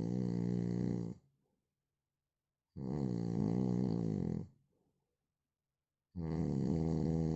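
A man snoring in a steady rhythm: three pitched snores, each well over a second long and about three seconds apart, with near silence between them. One is already sounding at the start and ends about a second in, one falls in the middle, and one begins near the end.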